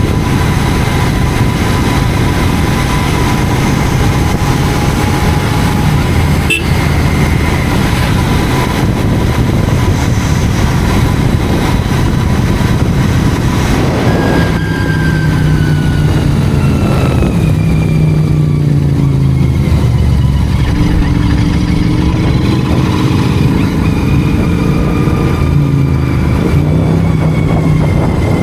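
Royal Enfield Continental GT 650's 648 cc parallel-twin engine running at road speed, heard through a helmet-mounted microphone with wind noise. About halfway through the engine note steps down and falls, then holds steady again.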